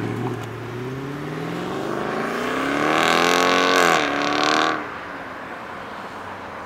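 Mercedes C63 AMG's 6.2-litre V8 accelerating away hard: the exhaust note climbs steadily in pitch for about four seconds, dips briefly at an upshift, rises again, then drops away suddenly as the car pulls off into the distance, leaving faint traffic noise.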